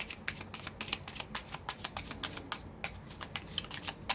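Tarot deck being shuffled by hand: a quick, even run of crisp card slaps and riffles, about four or five a second.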